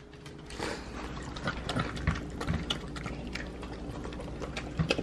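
Dogs eating soft, wet homemade dog food from plates: irregular wet chewing, smacking and lapping, with many small clicks.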